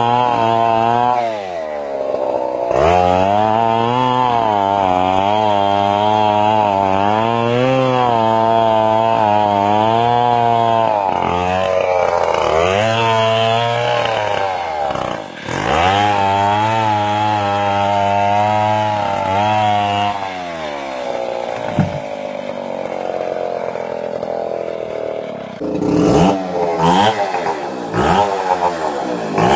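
Stihl 070 large two-stroke chainsaw running at high revs, cutting into wood, its pitch wavering and dipping several times as it bogs in the cut. After about twenty seconds it drops to a lower, uneven speed, and near the end it is revved in short, irregular blips.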